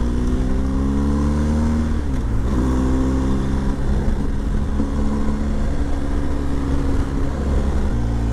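Motorcycle engine running under way as it is ridden, its pitch sliding down and back up about two seconds in, then stepping sharply around five seconds and again near the end.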